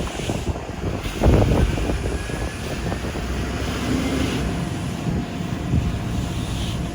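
A steady engine running, with wind buffeting the microphone and a few knocks about a second in.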